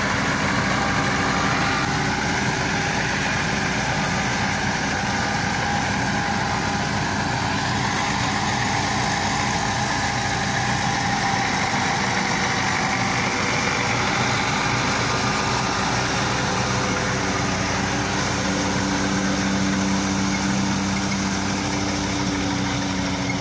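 Massey Ferguson 385 tractor's four-cylinder diesel engine running steadily under load while it drives a wheat-straw chopper, the chopper's noise mixed in. A low hum grows stronger in the last several seconds.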